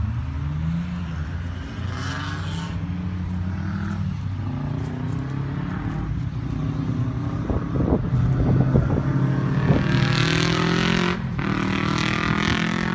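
A motor vehicle's engine running, its pitch rising and falling, swelling loudest about ten seconds in, as when a vehicle passes by.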